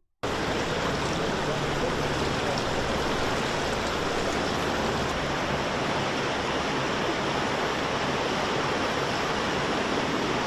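Floodwater rushing in a steady, dense stream of noise, beginning just after a moment of silence.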